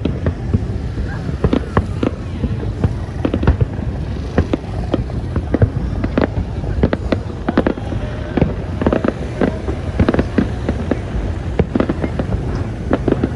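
Fireworks display going off: a dense, irregular run of sharp bangs and crackles over a steady low rumble.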